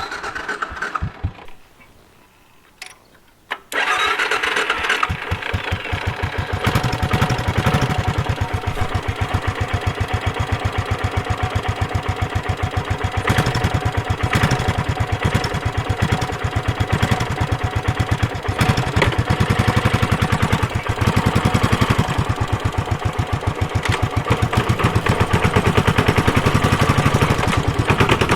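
Suzuki Savage 650's single-cylinder four-stroke engine: a short burst of starting at first, then it catches about three and a half seconds in and runs with a steady, rapid pulsing beat.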